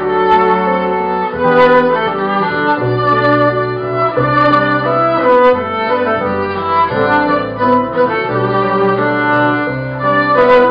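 Live band playing an instrumental passage of a song, a melody of held notes over accompaniment, with no singing.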